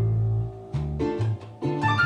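Instrumental music: plucked strings over a bass line moving in separate notes, with a short pause about halfway through.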